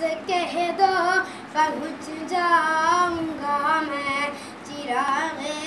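Boys' voices singing a devotional Urdu naat in a melodic, held-note style, with no instrumental accompaniment.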